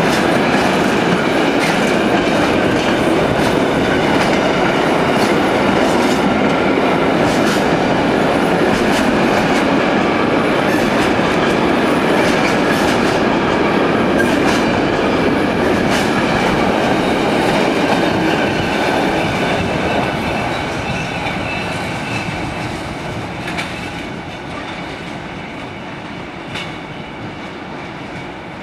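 Freight train of intermodal wagons loaded with trailers and containers rolling past close by, wheels clicking over rail joints. Its noise fades away over the last several seconds as the train moves off.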